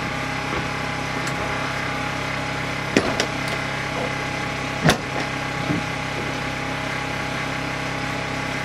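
Steady mechanical hum of a running motor, even and unchanging, with a few sharp clicks or knocks about three and five seconds in.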